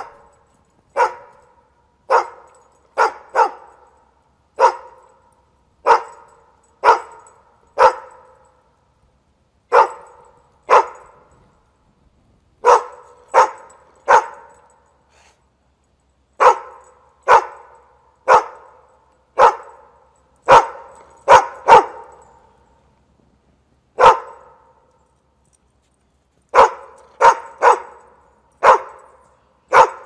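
A dog barking single sharp barks, about one a second with short pauses between runs, each bark trailing off in a short echo.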